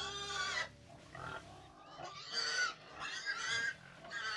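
Farm animals calling: a string of four or five short, high-pitched cries, one after another.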